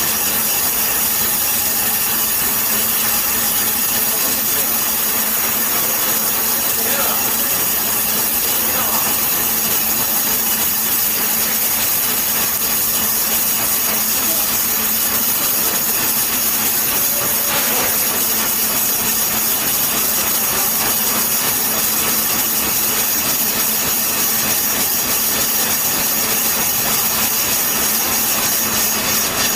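CNC vertical lathe turning the outer face of a cast-iron brake drum: a steady cutting hiss from the tool on the spinning drum, over a constant hum and whine from the machine.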